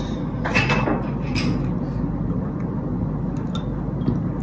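A steady low hum, with two brief noises about half a second and a second and a half in and a few faint clicks.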